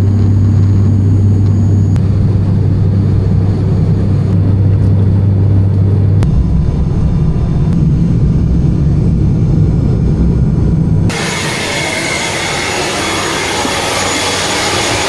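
Steady low engine hum of a vehicle, dropping out and changing to a different steady drone about six seconds in, then giving way to a broader, noisier rumble about eleven seconds in.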